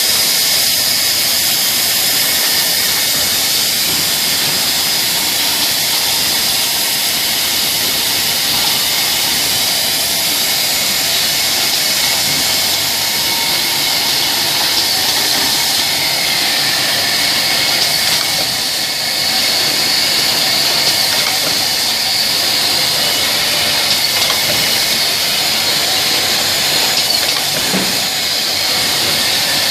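Steady running noise of a PVC gasket extrusion production line: a constant machine hiss with a high steady whine over it.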